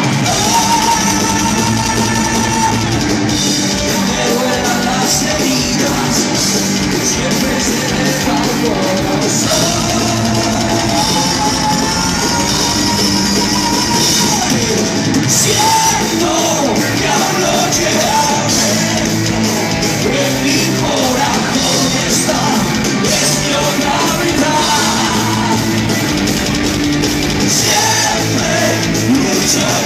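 Heavy metal band playing live, loud and unbroken: a male lead voice singing over distorted electric guitar and a drum kit, heard from the audience in a hall.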